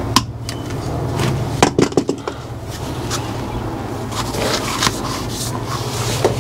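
Clicks and scrapes of a hand tool and metal parts being handled at the end of an armoured cable, with a cluster of sharp clicks about one and a half to two seconds in, over a steady low hum.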